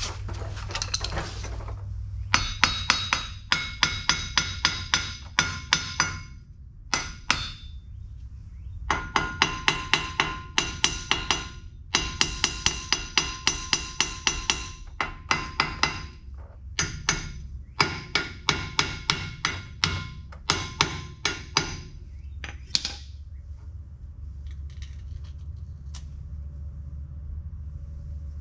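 Hammer blows on the steel yoke and U-joint of a dump truck's driveshaft, struck in several runs of quick blows at about three a second, each ringing metallically, to work the U-joint loose during driveline removal.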